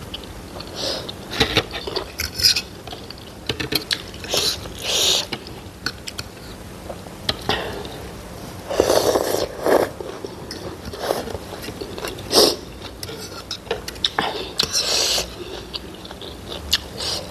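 Close-up eating sounds: noodle soup slurped and chewed, with a fork and spoon clinking against the bowl. A longer, louder slurp comes about halfway through.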